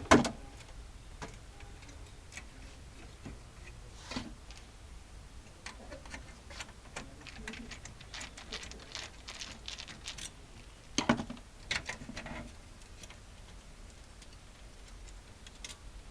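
Hands working on a printer's parts: irregular small clicks and taps, with louder knocks at the start, about four seconds in, and twice around eleven to twelve seconds in.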